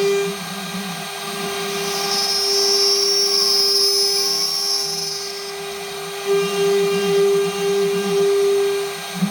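The 1.5 kW air-cooled spindle of a homemade CNC router runs with a steady whine while the machine cuts mounting holes in its spoilboard. A lower warbling sound joins it in the first second and again from about six seconds in.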